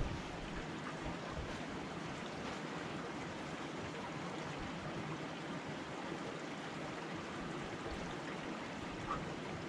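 Steady rushing of a mountain stream, with a couple of faint bumps near the end.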